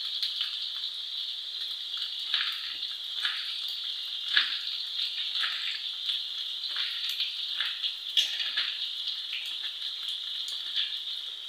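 Knife cutting fresh ginger into thin strips on a plastic cutting board, short chopping strokes about once a second, over a steady sizzle of beef frying on high flame in an iron karahi.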